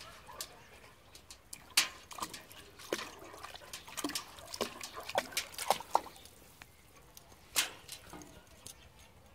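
A dog splashing and lapping with its muzzle in a tub of water while fishing out a rubber Kong toy: irregular splashes and drips, thickest in the middle, then one louder splash about three-quarters of the way through.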